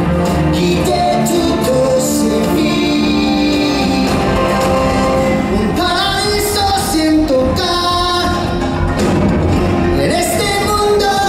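Loud show music with singing.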